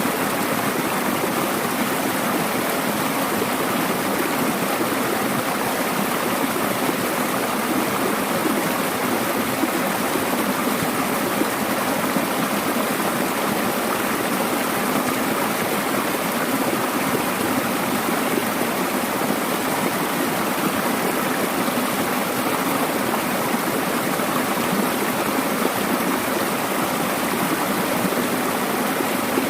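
Mountain valley stream rushing steadily over rocks, a constant full sound of flowing water.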